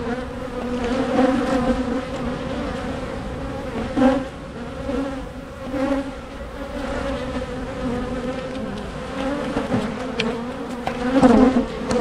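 A crowd of honey bees flying around an open hive, making a steady buzzing hum whose pitch wavers as single bees pass close by.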